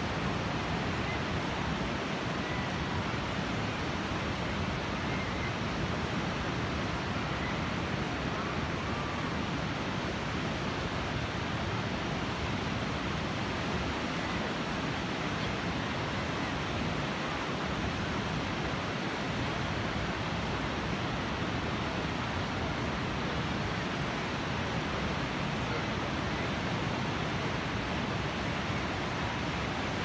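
Pacific Ocean surf breaking and washing in as a steady, unbroken rush of noise.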